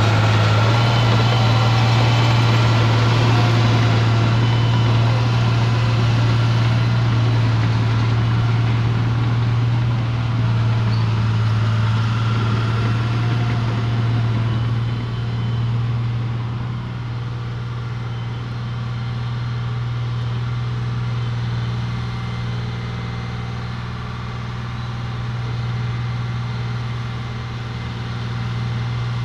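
Caterpillar D3C LGP crawler dozer's diesel engine running steadily at an even pitch as the machine moves away, getting quieter about halfway through.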